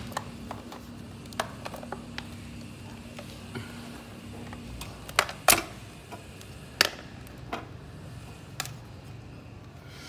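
Scattered sharp clicks and knocks of hands handling the head of a computerized multi-needle embroidery machine, its plastic and metal parts knocking. The clicks come irregularly; the loudest pair falls about five seconds in.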